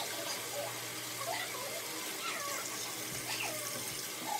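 Bathroom sink tap running in a steady stream while a face is washed over the basin.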